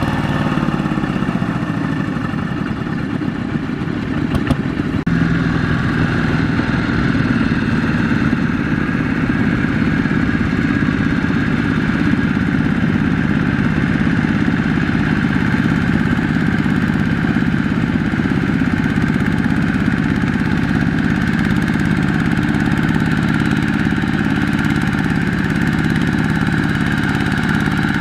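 Single-cylinder diesel engines of two-wheel walking tractors running steadily under load while working through deep mud. About five seconds in the engine sound changes abruptly as a different tractor takes over.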